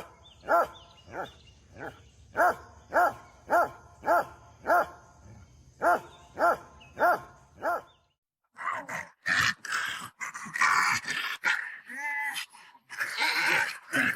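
A dog barking over and over at a steady pace, about two barks a second, a dozen or more in a row. The barking stops suddenly about eight seconds in and gives way to a denser jumble of noise.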